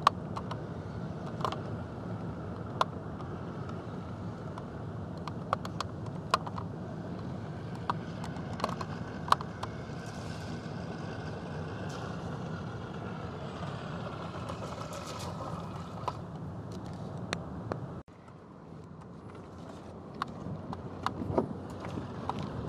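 A steady low engine rumble, like an idling vehicle, with scattered sharp ticks of raindrops striking close by. About 18 seconds in, the rumble cuts off abruptly and a quieter sound builds back up.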